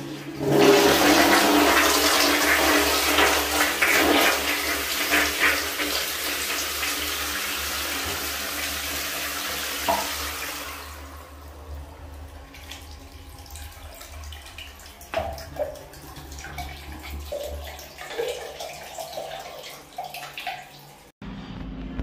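Ceramic squat toilet flushing: a loud rush of water into the pan for about ten seconds, then falling away to a quieter trickle with gurgling.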